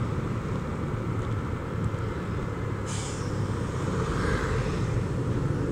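Honda Vario 125 scooter riding along a road: its single-cylinder engine runs steadily under wind and road noise, with a brief hiss about three seconds in.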